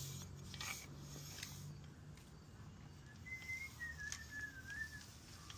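A faint whistle: one thin, wavering tone lasting about two seconds that steps down in pitch partway through. Before it, a low steady hum fades out.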